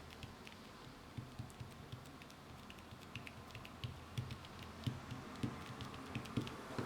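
Fingers typing on a Touchfire silicone keyboard overlay laid on an iPad's glass screen: soft, irregular taps, each a dull thud with a light click, coming faster and a little louder after about a second.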